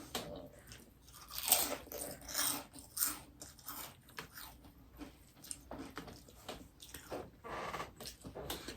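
Close-miked chewing and biting into a grinder sandwich: irregular crunchy mouthfuls, the loudest about a second and a half in.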